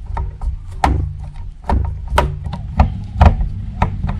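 Irregular hard clicks and knocks of plastic parts and tools being handled while a JBL Xtreme 1 Bluetooth speaker is taken apart, over a steady low hum.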